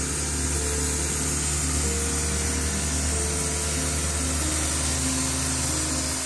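Boat's 140 hp Mermaid marine diesel running under way, a steady low drone mixed with the hiss of wind and spray, with background music over it.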